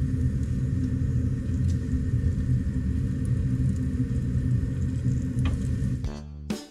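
Steady low rumble with faint sizzling of battered zucchini slices frying in shallow oil, and a few small pops. Music cuts in near the end.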